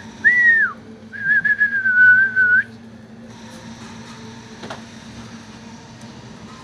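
A person whistling: a brief note, then a short note that rises and falls away, then a held note of about a second and a half with a slight waver, ending about two and a half seconds in. A faint steady hum follows.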